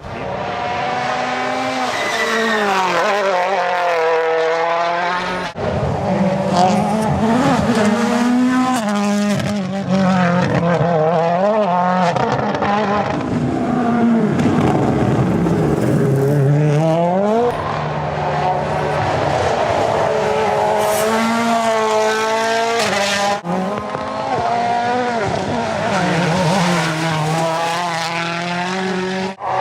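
Toyota Yaris WRC rally car's turbocharged 1.6-litre four-cylinder engine under hard acceleration, its pitch climbing and dropping back again and again through gear changes. There are a few abrupt breaks.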